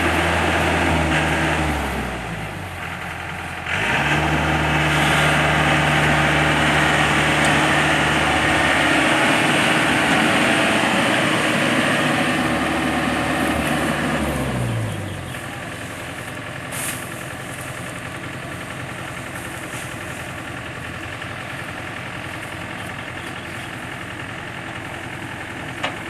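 Rice combine harvester's engine running at high revs. Its pitch drops about two seconds in and surges back up near four seconds, then it winds down to a lower, quieter run about fifteen seconds in.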